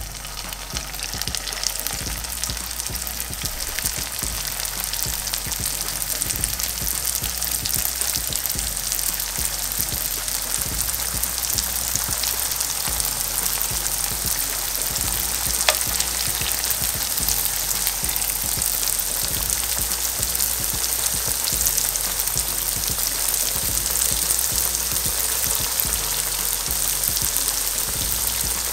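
Pişi dough pieces deep-frying in hot oil in a pan: a dense, steady sizzle with fine crackling. It grows louder over the first few seconds as more pieces go into the oil. A single sharp click sounds about halfway through.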